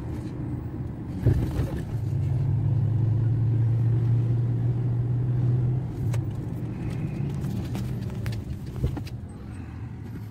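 Car engine and road noise heard from inside the moving car's cabin. The engine's low drone grows louder about a second and a half in and eases off about six seconds in, with a few light knocks.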